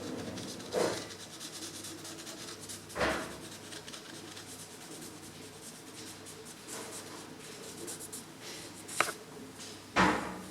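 A black permanent marker rubbing and squeaking faintly as it is drawn along a chipped wooden cupboard to colour in the chips. There are louder brushing sounds about a second in and about three seconds in, a sharp click near the end, and one more loud brush just after it.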